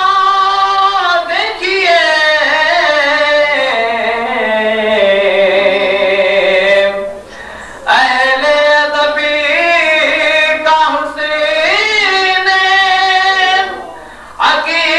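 A man's voice sings a devotional naat with no instruments. He draws the words out in long, melismatic phrases that bend and slide in pitch, and pauses for breath about seven seconds in.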